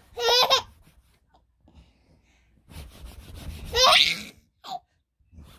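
A baby laughing and squealing in two high-pitched bursts: a short one at the start and a longer one about three seconds in that rises in pitch.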